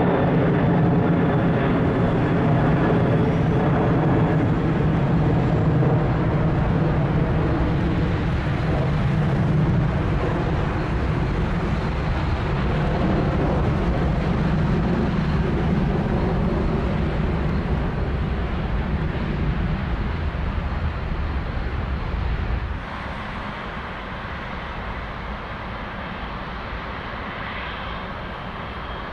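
Boeing 747's four jet engines passing low overhead: a loud, steady rumble with a droning hum, slowly fading. About three-quarters through it cuts off abruptly to a quieter, more distant jet engine noise.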